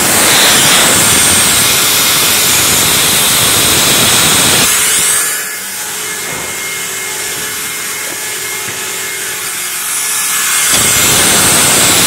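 Rotary screw air compressor running: a loud, steady rush with a strong hiss, dropping in level for about six seconds midway and then coming back.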